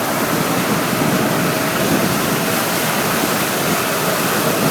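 Loud, steady rush of floodwater pouring or flowing fast.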